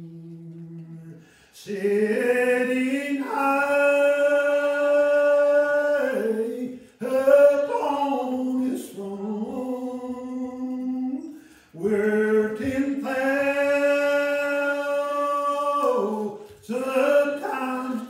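One voice singing unaccompanied, holding long, steady notes in phrases a few seconds long with short breaks between them.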